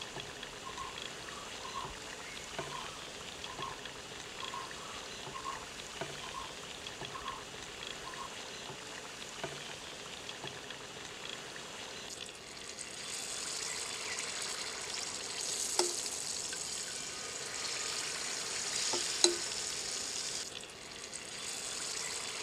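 Hot coconut oil sizzling in the wells of an unniyappam pan. The sizzle is faint at first, then grows louder and brighter about halfway through as batter is poured into the wells. A couple of sharp metal clicks come near the end.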